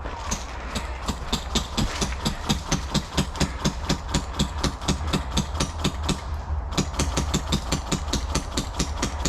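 Quick footsteps of a person jogging, about three to four steps a second, with gear knocking in time and a steady low rumble of wind or handling on the microphone.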